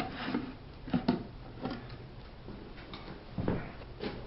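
A few scattered light knocks and clicks, about one a second, from a wooden bluebird nest box and its screws and tools being handled.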